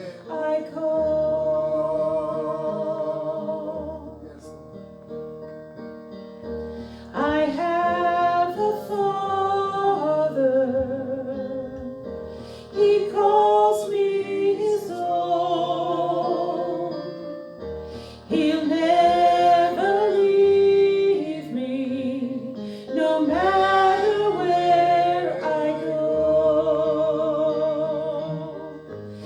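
Slow worship song: a woman singing long held notes with vibrato over instrumental accompaniment, in phrases with short quieter pauses between them.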